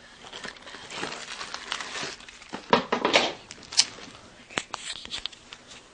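Rustling and crinkling handling noise as the camera is moved about, loudest about halfway through, with a few sharp clicks after that.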